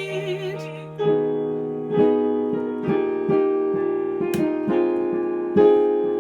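Piano backing track playing an instrumental interlude of struck chords, roughly one a second. A held sung note with vibrato trails off in the first half-second.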